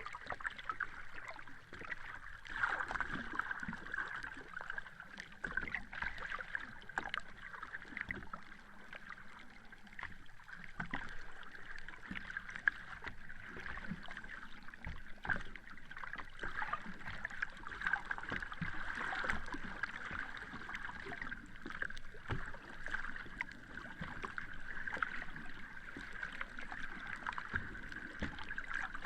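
Sea water lapping and splashing: a steady fizzing wash dotted with many small splashes and crackles, swelling a little now and then.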